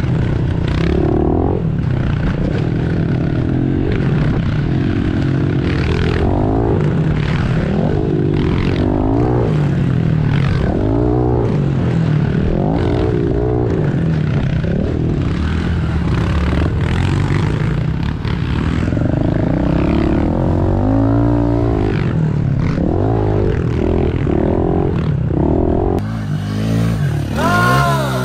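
Honda dirt bike engines on a trail ride, revving up and falling back every second or two as the riders work the throttle through the turns and bumps, heard from the rider's own bike. Near the end one engine revs up steeply.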